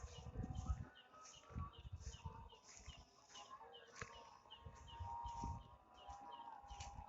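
A regular series of short, high chirps, about two to three a second, with low bumps and rustling of handling or footsteps underneath.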